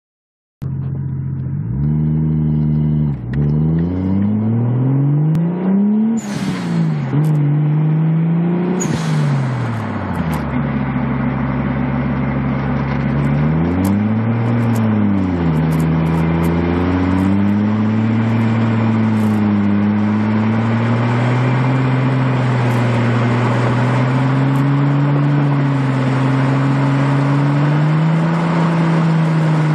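Car engine heard from inside the cabin while driving, its pitch rising and dropping sharply several times in the first fifteen seconds, then pulling steadily with the revs climbing slowly.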